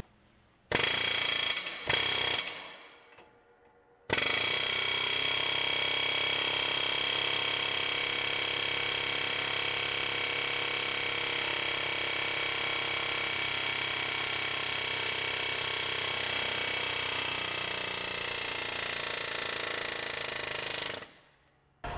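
Pneumatic straight die grinder working on a truck hub's axle flange stud: a short run that winds down after about two seconds, then a steady high-pitched run of about seventeen seconds that cuts off suddenly near the end.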